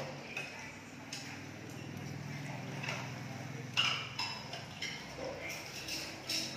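Scattered light clicks and knocks, the sharpest a little under four seconds in, over a low hum that fades out about two-thirds of the way through.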